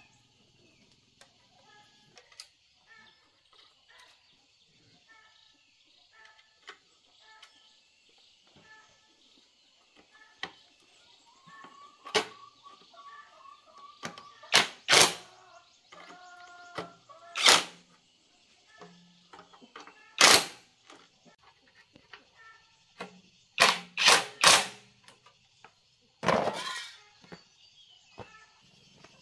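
Cordless drill run in several short, loud bursts while fastening parts on a small single-cylinder diesel engine. Chickens cluck faintly in the background.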